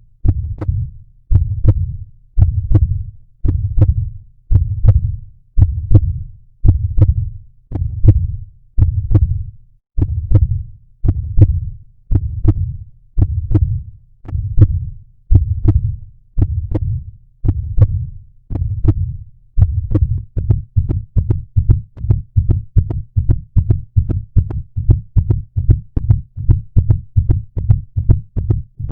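Heartbeat audio throbbing at about one beat a second, then about 19 seconds in quickening to roughly two beats a second. The speed-up marks the timer finishing.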